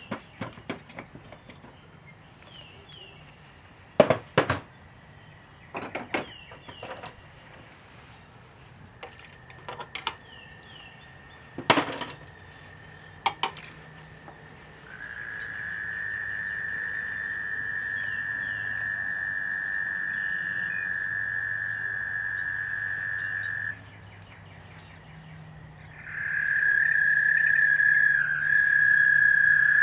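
A frog calling in one long, steady trill that breaks off for about two seconds and then starts again. A few sharp taps and knocks come in the first half.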